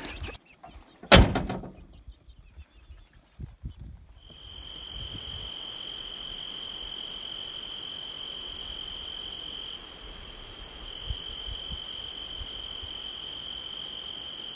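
A sharp knock about a second in, then, from about four seconds, a cricket trilling on one steady high note over a faint hiss, with a short break near the middle.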